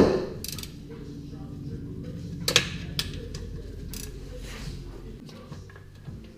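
Hand tools on the transmission's bell housing bolts: a loud metal clank that rings briefly, then a socket wrench working, with two sharp clicks about two and a half and three seconds in.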